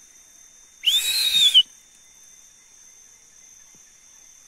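One loud, breathy human whistle about a second in, lasting under a second, on a high note that rises slightly and then falls away: a hunter whistling to urge on his hunting dogs. A faint steady high insect trill runs underneath.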